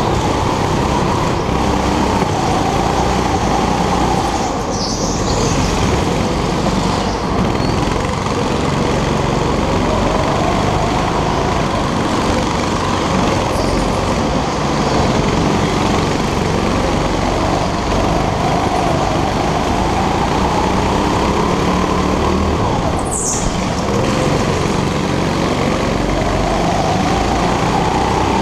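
Go-kart engine heard from onboard, running hard with its pitch rising and falling every few seconds as the kart accelerates and slows for the corners.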